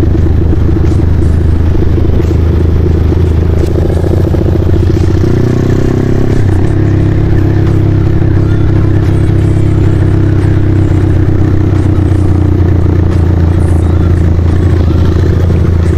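A Honda Tiger motorcycle's single-cylinder four-stroke engine running steadily under way, heard from the rider's seat. Its note changes about five seconds in, then holds steady again.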